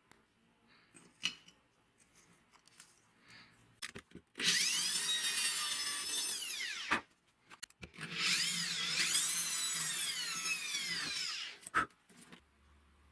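Power drill run in two bursts of about two and a half and three and a half seconds, its pitch rising and falling as it is worked, with small taps and clicks of handling around them.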